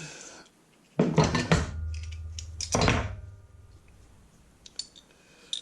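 Steel spanners clanking as they are handled and set down: two clattering knocks about two seconds apart, the first leaving a short metallic ring. A few light clicks follow near the end.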